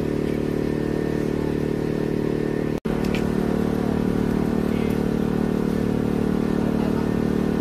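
A vehicle engine idling with a steady, even hum. The sound drops out for an instant a little under three seconds in, then carries on unchanged.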